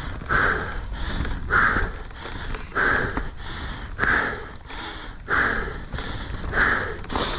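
A mountain biker breathing hard while climbing on the bike, with a loud exhale about every second and a quarter over a steady low rumble. A sharp click comes near the end.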